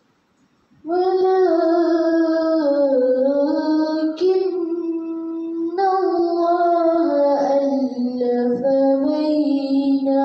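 A young girl's voice reciting the Quran in tarannum, the melodic chanted style, starting about a second in. Long held notes slide and waver in pitch, with short breaks about four and six seconds in.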